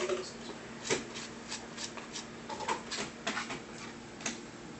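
A dozen or so irregular light clicks and taps, over a faint steady hum.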